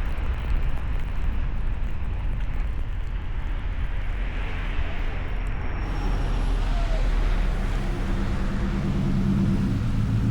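A car driving on a snowy road: steady tyre and road noise over a low rumble. An engine note rises to a steady hum near the end.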